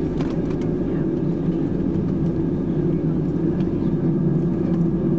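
Cabin noise in an Airbus A320-214, its CFM56 engines running at low taxi power before the takeoff roll: a steady hum with two steady tones, and a few faint ticks about half a second in.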